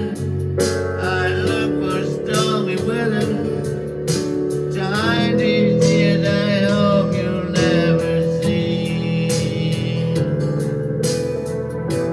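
A man singing a slow early-1960s pop ballad over electronic keyboard accompaniment with a guitar sound.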